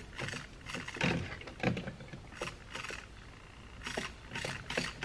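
Small plastic clicks and taps from handling an RC truck's steering servo and its wiring as the servo lead is unplugged from the receiver, with a quicker run of light ticks near the end.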